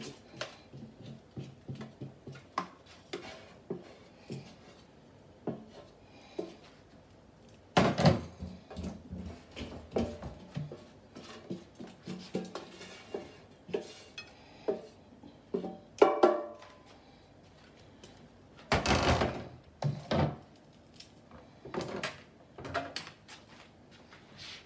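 A nonstick air fryer basket and tongs clattering against a plate, with irregular clicks and knocks as the basket is tipped and tapped to empty out the onions, and several louder bangs about 8, 16 and 19 seconds in. Quiet music plays behind.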